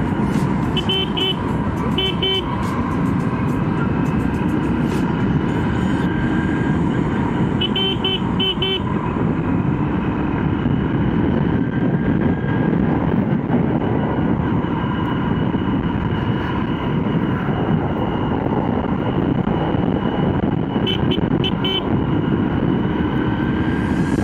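Motorcycle riding steadily along a road, its engine running with road noise throughout. A horn is tooted four times in quick little beeps.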